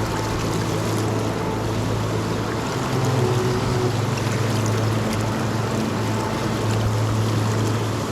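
Steady rush of river water, with a low hum underneath that changes pitch a few times.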